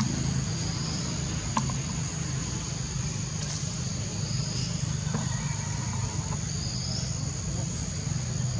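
Steady high-pitched insect drone over a low, steady rumble, with a few faint short calls about one and a half seconds in and again around five to six seconds in.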